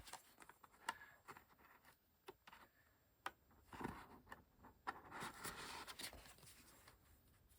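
Faint handling of paper and card: scattered light taps and clicks, with a stretch of paper rubbing about five to six seconds in.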